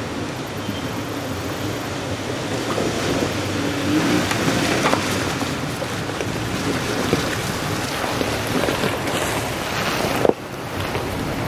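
Toyota Tacoma pickup trucks driving through a shallow creek: tyres splashing and churning through the water over the steady running of the engines. The sound breaks off abruptly about ten seconds in.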